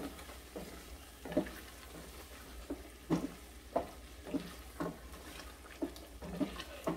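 A wooden spoon stirring chicken and chickpeas in a stainless steel pot, scraping and knocking against the pot about twice a second, over a faint sizzle. This is the bhuna stage: the curry is being fried down now that its water has cooked off.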